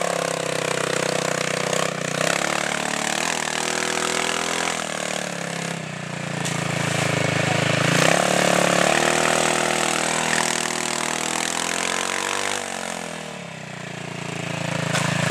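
Off-road dune buggy's engine revving under load as it drives through a creek and climbs a bank, its pitch rising and falling; it revs up hard about eight seconds in and drops off briefly near the end.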